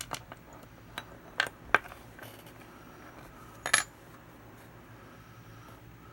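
Small metal parts of a disassembled pop rivet gun clinking and tapping against each other and the bench as they are handled: several sharp clicks in the first two seconds, and a clink with a short metallic ring near four seconds in.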